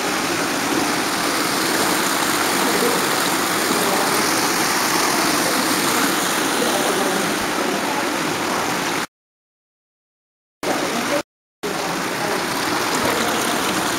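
Steady, even rushing noise. It cuts to dead silence for about a second and a half past the middle, and again briefly soon after.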